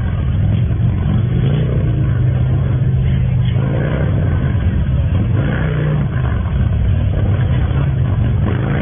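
Large touring motorcycles' engines running at low speed through a tight cone course, a steady rumble with occasional revs rising and falling.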